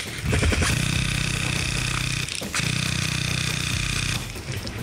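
Airsoft electric rifle with a DSG (dual sear gearbox) firing full auto in two long buzzing bursts, about two seconds and one and a half seconds, with a short break between.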